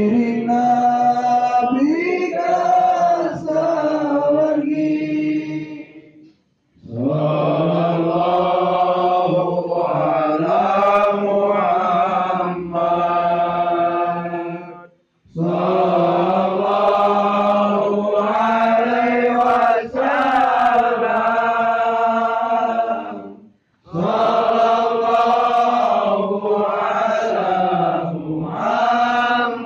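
A group of voices chanting shalawat, Islamic devotional praise of the Prophet Muhammad, in four long sung phrases with brief pauses for breath between them.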